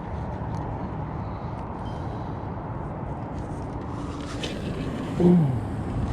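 Steady wind noise buffeting the microphone, with a man's short falling "ooh" about five seconds in.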